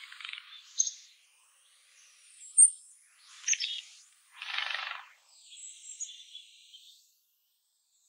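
Townsend's warbler bathing in a shallow stone birdbath: several short bursts of splashing and wing-fluttering in the water, one after another. The loudest is a brief, sharp high sound about two and a half seconds in.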